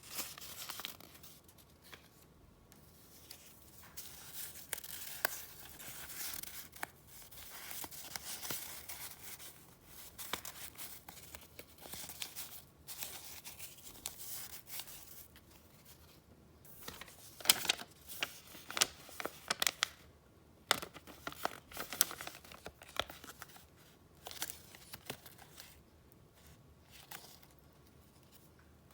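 Paper being handled at close range: irregular rustling broken by many sharp crackles, busiest a little past the middle.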